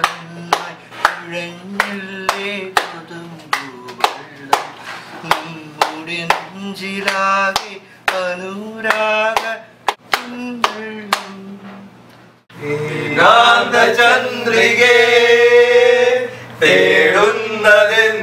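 A man sings a melody while sharp claps keep a beat about twice a second. About twelve and a half seconds in, this cuts off and louder male singing takes over.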